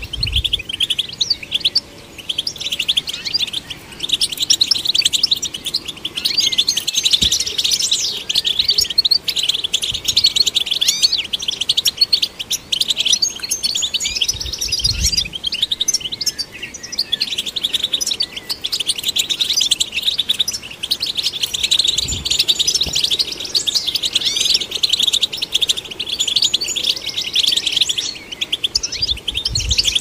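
European goldfinch singing: a fast, continuous twittering song of high chirps and trills, with a few soft low thumps in between.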